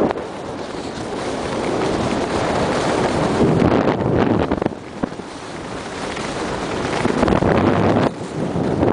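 Wind rushing over the microphone and skis scraping on hard-packed snow during a fast downhill run, swelling and fading in long waves and dropping off sharply about halfway through and again near the end.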